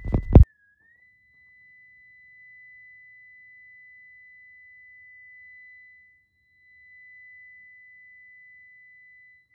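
Steady high electronic tone from a Gen-Eye Hot Spot pipe locator receiver as it picks up a traced underground line; the tone dips briefly at the start, then holds one pitch. It is preceded by a brief burst of loud handling thumps.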